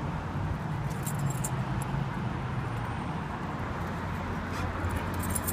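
Steady low rumble of vehicle engine and traffic noise, with a few faint light clinks about a second in and near the end.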